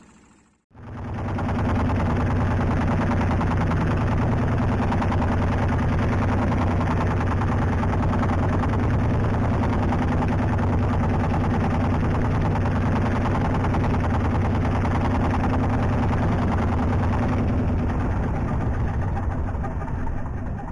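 Small fishing boat's motor running steadily under way, a loud, even low chugging that cuts in abruptly just under a second in.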